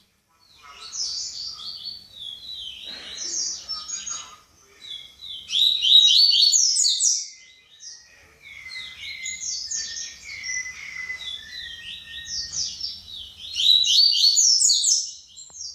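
Papa-capim seedeater singing its 'baderna' song: rapid chattering phrases of short, quickly falling high notes, with a brief pause in the middle.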